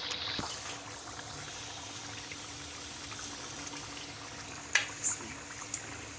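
A masala of ghee, onion and yogurt sizzling steadily in a metal pot with raw chicken pieces just added. A metal ladle clicks sharply against the pot twice, close together, about five seconds in.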